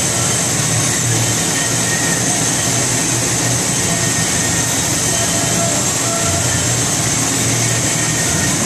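Haas MDC500 CNC milling center running behind its closed enclosure door: a steady machine whir with a constant high hiss over a low hum.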